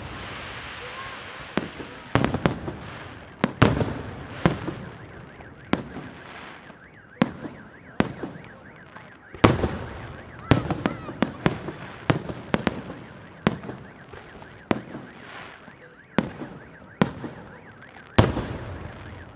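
Aerial fireworks display: firework shells bursting in an irregular series of sharp bangs, about one or two a second, each trailing off.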